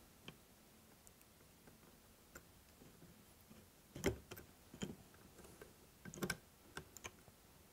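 Faint, scattered metal clicks and light knocks from scope rings on a Ruger M77 being slid and shifted along the receiver's dovetail until their recoil keys fall into place. The loudest clicks come about four seconds in and again around six seconds.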